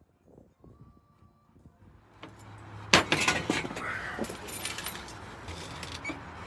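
Plates and cutlery clinking and knocking on a glass-topped patio table: a sharp clink about three seconds in, followed by a few lighter clinks, over a steady background hiss.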